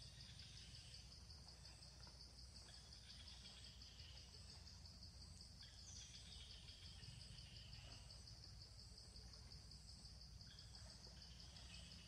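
Faint, steady high-pitched chirring of insects, with occasional faint bird chirps and a low rumble of outdoor background noise underneath.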